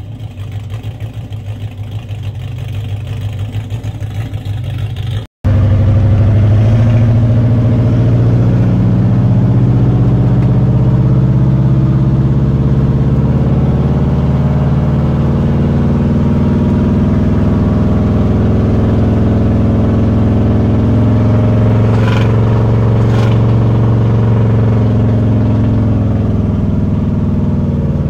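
Big-block V8 of a chopped 1953 Ford F100 idling with a pulsing exhaust note, heard from behind the truck. After a sudden break about five seconds in, the engine is heard from inside the cab pulling the truck down the road, a deep, steady drone whose pitch rises and falls slightly.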